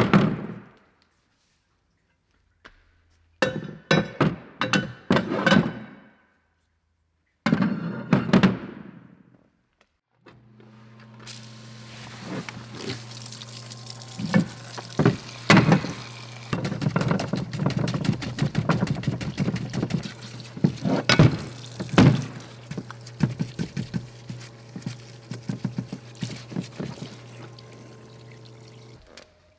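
Cast-iron motor parts knocked and set down in a parts washer: three short clusters of thunks and clatter. From about ten seconds in, a steady machine hum with a hiss over it runs until just before the end, with many small knocks of the part being handled; this is the part being abrasive-blasted in a blast cabinet.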